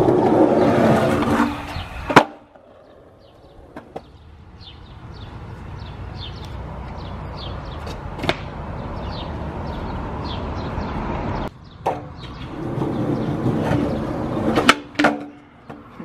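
Skateboard wheels rolling on concrete, loud at first, quieter through the middle, and loud again near the end. Sharp clacks of the board's tail popping and the deck landing cut in several times, one about eight seconds in as a flip trick is thrown.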